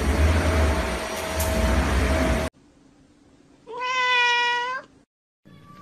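Low rumbling noise and hiss that cuts off suddenly, then a tabby cat gives one drawn-out meow, about a second long and steady in pitch.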